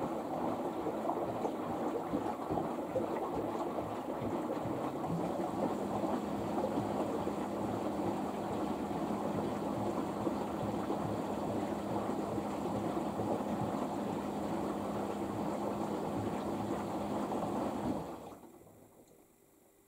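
LG AiDD Steam F4V910BTSE direct-drive washing machine in its final rinse: the drum turning the load through the rinse water, with water sloshing. A steady hum joins about five seconds in, and the sound stops suddenly near the end.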